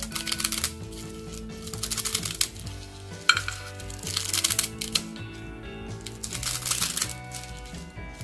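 Scissors cutting through a stack of crisp roasted seaweed sheets: a crackly crunching in about four bursts, over background music.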